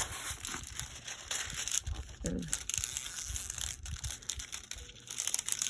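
Plastic packaging of a diamond painting kit crinkling and rustling as it is handled and unpacked by hand, in irregular bursts.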